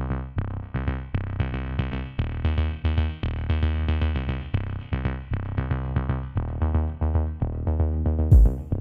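Electronic music played loud through a speaker driven by a car-audio amplifier under test: bass-heavy synth notes repeat in a quick rhythm, with little treble. Hard drum hits come in just before the end.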